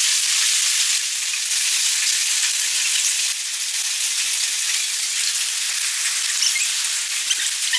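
Hailstorm: heavy rain and hail pouring down in a dense, steady hiss, with a few sharper ticks near the end.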